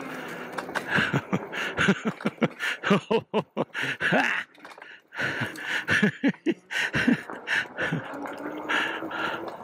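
Fat-tire electric mountain bike clattering over a rooty dirt trail: an uneven run of knocks and rattles with brief falling tones mixed in, and two short drops in level about three and five seconds in.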